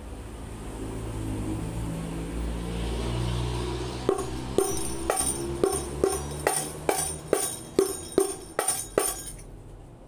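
Carved Jepara rebana frame drum struck by hand about a dozen times in quick, uneven succession, starting about four seconds in, each stroke a sharp slap with a short ringing tone; a low rumble comes before the strikes.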